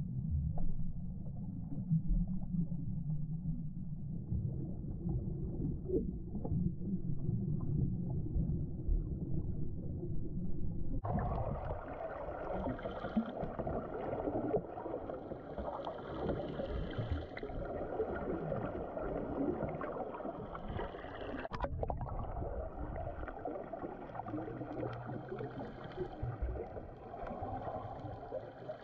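Muffled underwater noise from a submerged microphone: a low churning rumble of moving water and bubbles. About eleven seconds in it changes abruptly to a brighter, hissier wash.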